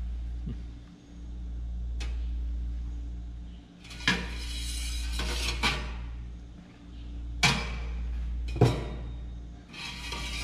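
Metal stove parts being handled and fitted into a tent wood stove: scraping and rustling, with two sharp metal knocks in the second half. Under it runs a steady low hum that dips every few seconds.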